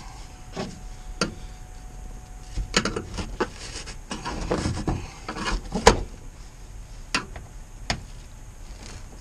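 Irregular knocks, clunks and scraping from hand work stripping out a van's interior panels and floor, with a sharper knock about six seconds in.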